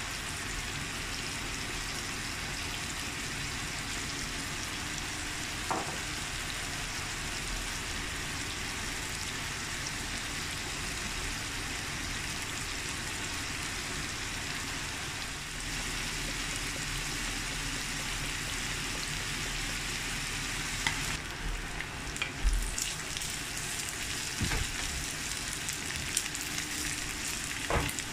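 Minced beef sizzling steadily as it fries in oil in a non-stick pan. In the last several seconds a wooden spatula stirs it, adding scattered light knocks and scrapes against the pan.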